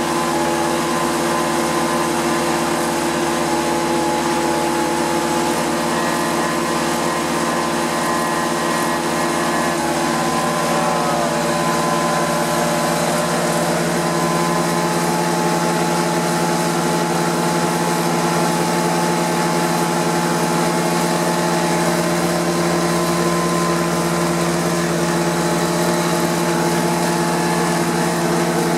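Prochem Performer 405 truck-mount carpet cleaner running steadily: its Nissan A15 four-cylinder engine drives the Sutorbilt vacuum blower and Cat high-pressure pump with an even machine hum. The low drone grows a little stronger about a third of the way in.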